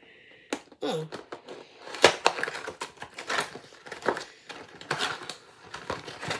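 Cardboard and plastic toy-doll packaging being worked open by hand: irregular clicks, snaps and rustles, with a short vocal sound from the person about a second in.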